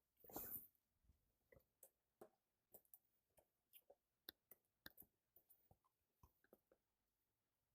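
Faint handling noise from a graphics card's box and packaging: a brief rustle about half a second in, then scattered small clicks and taps as the packaging is handled.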